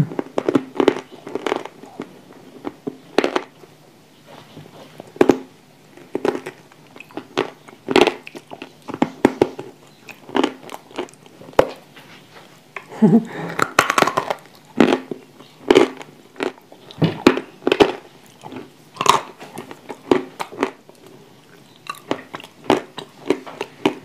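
Close-miked crunching bites and chewing of dry edible clay chunks: sharp, irregular crunches every second or so throughout. There is a brief voice sound about halfway through.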